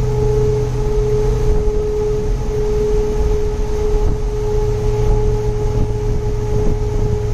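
Wind whistling through a metal ladder on a Toyota Sequoia's roof rack at road speed: one steady, unwavering tone with a fainter overtone above it, over the low rumble of wind and road, a sound likened to a Stuka dive bomber.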